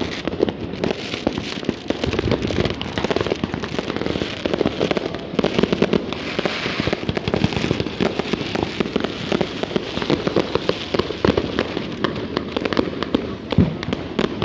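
Many firecrackers and fireworks going off at once, a dense, unbroken crackle of bangs from all around.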